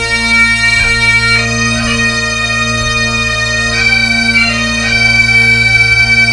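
Bagpipe music: a steady drone under a melody of held notes that change every second or so.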